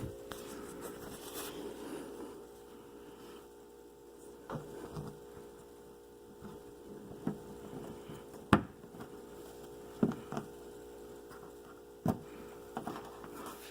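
Plastic push-pin fasteners being pressed and snapped into holes in a car's bumper trim: scattered sharp clicks and knocks, the loudest about eight and a half seconds in, over a steady electrical hum.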